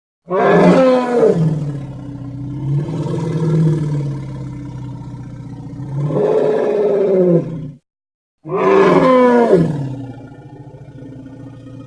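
Designed Triceratops dinosaur sound effect: a loud call that falls steeply in pitch, a lower drawn-out call, then a short cut of silence and a second loud call that falls in pitch the same way. A steady low hum follows near the end.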